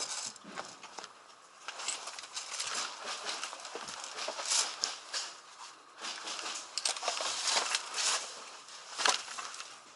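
Footsteps and rustling of clothing and gear moving through dry undergrowth, in uneven crackling bursts, with one sharper knock about nine seconds in.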